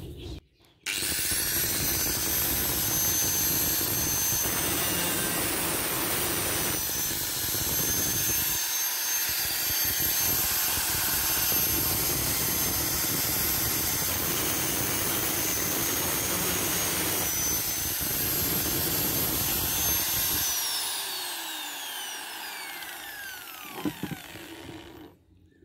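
Electric angle grinder with a cut-off disc starting up with a high steady whine and cutting through a galvanized steel hollow box-section. About 20 seconds in it is switched off, and its whine falls in pitch as the disc spins down.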